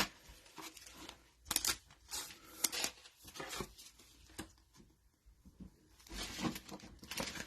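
Trading cards and their retail pack wrappers being handled: a scatter of short flicks, taps and papery tearing or rustling sounds. A longer rustle comes about six seconds in.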